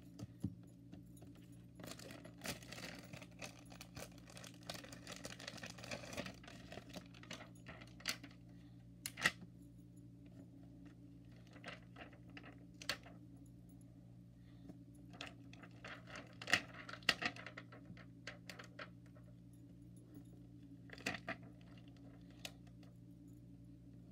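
Clear plastic sticker sheets being handled: crinkling plastic and small clicks of fingernails against it, in irregular clusters, busiest a couple of seconds in and again about two-thirds through, over a steady low hum.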